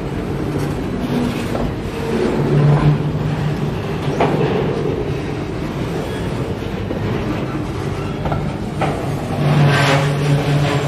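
Empty container flatcars of a freight train rolling past: a steady rumble of steel wheels on rail, with a low hum that comes and goes and a few sharp knocks.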